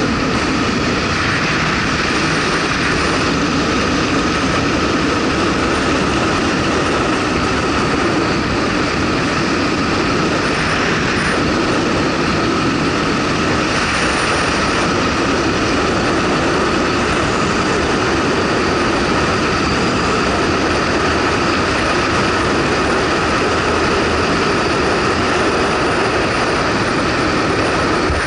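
Motorcycle underway at a steady speed: a constant engine drone mixed with wind rush on the microphone.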